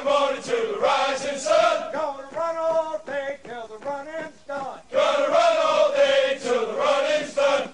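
A group of men's voices chanting a song in unison, line by line with short breaks between phrases.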